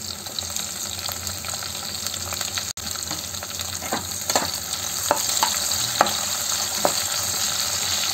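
Chopped tomatoes, cumin and green chillies sizzling in hot ghee in a coated kadhai, with a steady hiss. A steel spatula stirs and scrapes them against the pan, giving several knocks over the second half. The sound drops out for an instant about a third of the way through.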